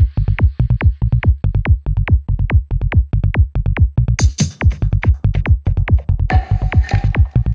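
Psy-trance electronic music: a steady four-on-the-floor kick and rolling bassline under rapid percussive clicks. Bright high percussion comes in about four seconds in, and a hiss of noise with a held tone joins near the end.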